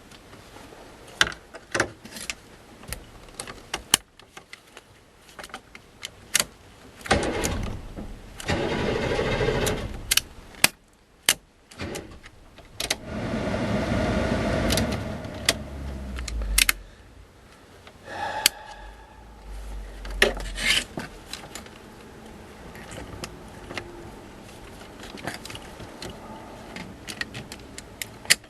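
Sharp metallic clicks and clanks of hand work on a truck's steering column, with two louder sustained mechanical runs of about three to four seconds each, the first a few seconds in and the second in the middle.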